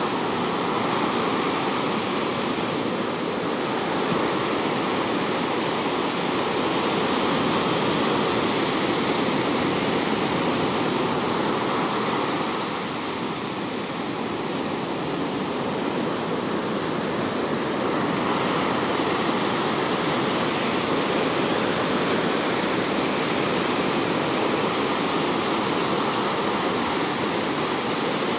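Ocean surf breaking and washing up the beach in a steady rush that eases briefly about halfway through.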